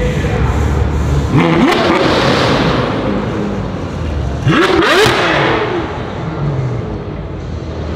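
A performance car engine revved twice, each rev a quick rise in pitch that falls back to idle. The revs come about a second and a half in and about four and a half seconds in, the second the louder, with the engine idling between and after them.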